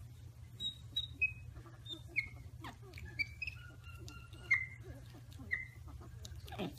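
Monkeys' short, high-pitched chirps and squeaks, about ten scattered through, some sliding in pitch, with one longer steady peep around the middle.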